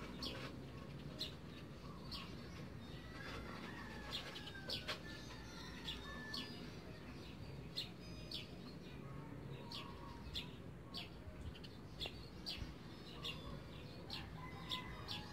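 Birds chirping in the background: many short, high chirps at irregular intervals over a steady low rumble.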